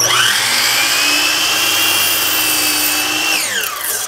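Miter saw motor starting with a rising whine and running steadily as the blade cuts through two stacked cedar fence pickets. About three seconds in it is switched off and the blade winds down with a falling whine.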